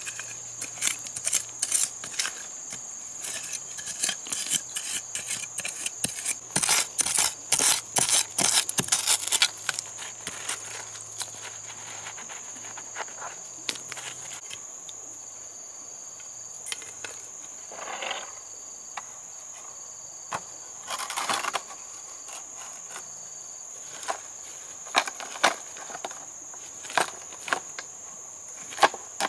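Steady high-pitched drone of an insect chorus, with scattered sharp knocks and clicks over it. The knocks come in a quick run about seven to nine seconds in, and there are two short noisy swishes around eighteen and twenty-one seconds in.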